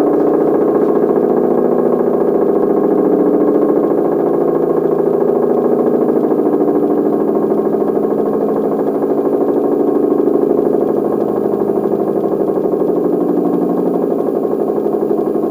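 Low-tone unit of an L138 three-port air-raid siren sounding a steady low wail during the 'Feueralarm' (fire alarm) test signal, easing slightly in loudness about eleven seconds in.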